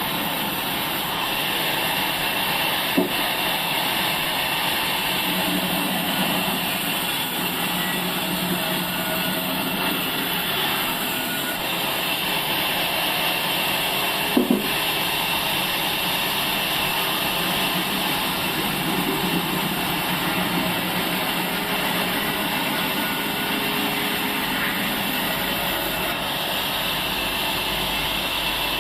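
Sawmill saw and its machinery running steadily, with two sharp knocks, one about three seconds in and one about halfway through.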